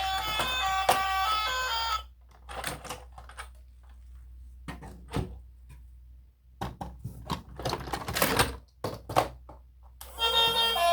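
Background music stops after about two seconds, giving way to irregular clicks, knocks and rustling of objects being handled. The rustling is densest a little past the middle, and the music comes back near the end.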